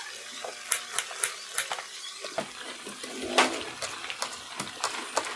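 Kitchen knife slicing onion and then red chillies on a wooden chopping board: about a dozen sharp, irregularly spaced taps of the blade against the wood.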